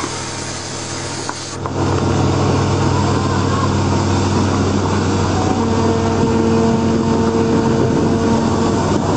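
Steady low engine rumble with wind noise. It jumps to a louder recording about a second and a half in. A steady low tone joins from about five and a half seconds until near the end.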